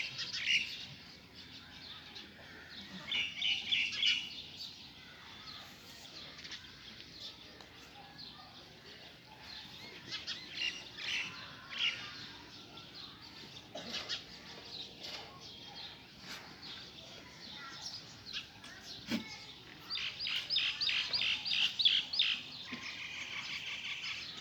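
Small birds chirping in quick runs of high notes that come and go: a burst about three seconds in, more around ten to twelve seconds, and the loudest run near the end, ending in a fast trill.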